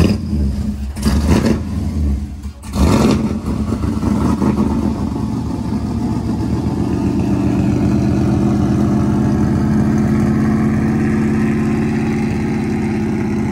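Chevrolet Silverado pickup's engine running through a newly fitted exhaust with dual side-exit tips: three quick revs in the first three seconds, then a steady idle.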